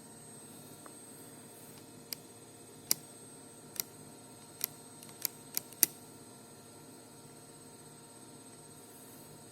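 Sharp plastic clicks and snaps from the hammer mechanism of a Lego rubber-band gun being worked, about eight irregular clicks in the first six seconds, the last few closer together and the loudest. A faint steady hum lies underneath.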